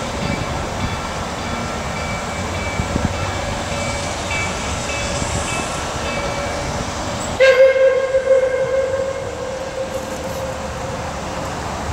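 Over a steady low rumble, a steam locomotive's whistle sounds one long blast about seven seconds in, lasting some three seconds and starting abruptly; it is the loudest sound here.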